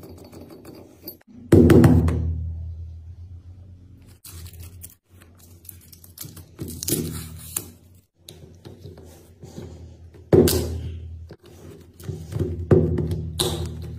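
Background music with a steady low tone under it, broken by heavy thuds about a second and a half in and again about ten seconds in, each fading away slowly.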